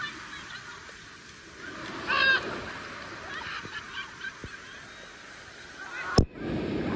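Surf washing on a beach, with scattered short high-pitched calls, the loudest about two seconds in. A single sharp click comes near the end.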